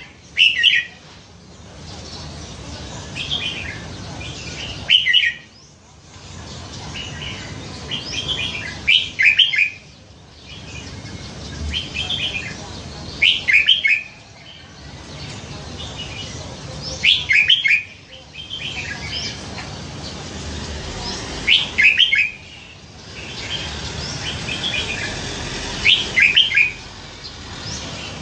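Red-whiskered bulbul singing short, loud, warbled phrases about every four seconds, seven times in all, with softer chirps in between.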